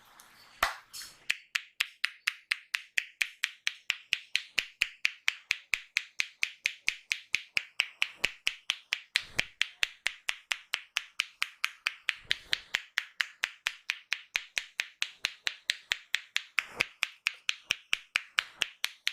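Rhythmic hand percussion of a barber's head massage: sharp, crisp clicks at about four a second, kept up at a steady pace, with a few soft low thumps in between.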